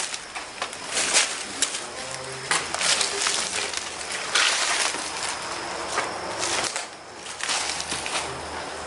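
Irregular crunching and rustling, with a few sharp clicks, like footsteps and movement on debris.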